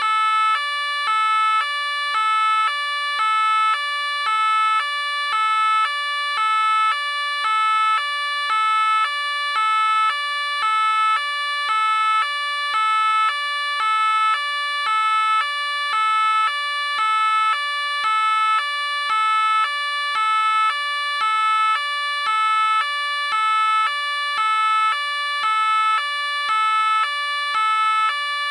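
French police car two-tone siren alternating steadily between a high and a low note, one full high-low cycle a little over a second long.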